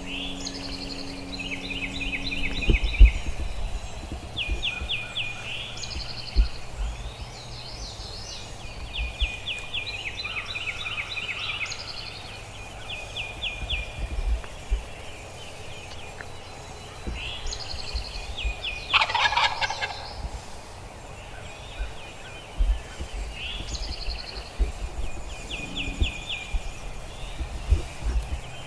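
Wild turkey gobbling once, a loud rattling call about two-thirds of the way through. Small songbirds sing short repeated trills throughout.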